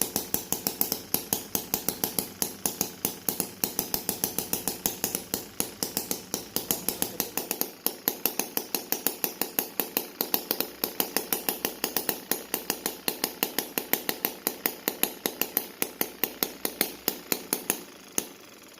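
Small engine running with a rapid, very regular knocking, about six knocks a second over a steady hum, stopping shortly before the end.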